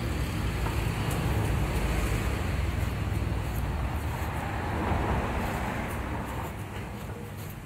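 Road traffic noise with a steady low rumble, one vehicle passing and swelling up about five seconds in before fading.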